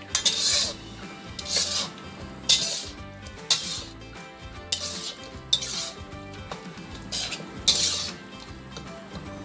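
A metal spatula scrapes and stirs around a black iron karahi, mixing mutton, tomatoes and spices. The scraping strokes come about once a second.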